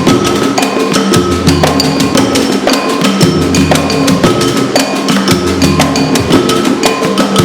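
Improvised hand-percussion groove: a fast, steady run of drum strokes with a repeating high, knocking wood-block-like tone and recurring deep low notes.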